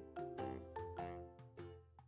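Soft background music of mallet percussion, a vibraphone- or marimba-like tune of struck notes at a few notes a second.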